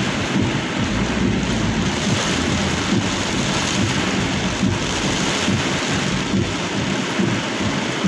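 Heavy rain pelting the roof and windshield of a vehicle, heard from inside the cab as a steady, dense patter with a low rumble beneath it.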